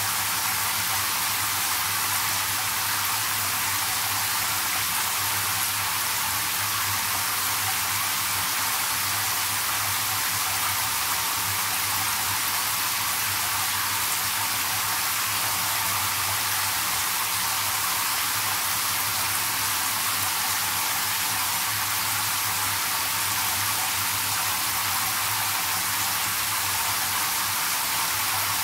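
Shower head spraying water into a whirlpool bathtub as it fills, the stream splashing on the tub wall and into the pooled water: a steady, even hiss of falling water.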